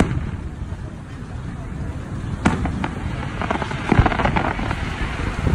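Aerial fireworks display: a sharp bang about halfway through, then a run of crackling, with a deep boom of a bursting shell in the middle of it.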